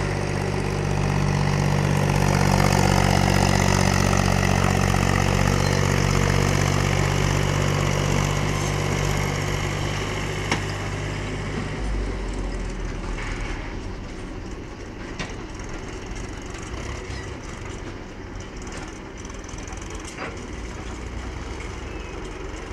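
Farm tractor's diesel engine pulling a trailer loaded with soil, running steady and loud under load. About halfway through the note drops away sharply, and the engine sounds quieter and farther off as the tractor drives away.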